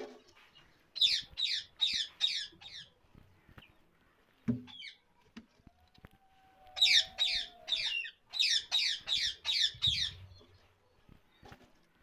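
Ringneck parakeet giving two bouts of short, sharp, falling calls repeated about four times a second, with a pause between them.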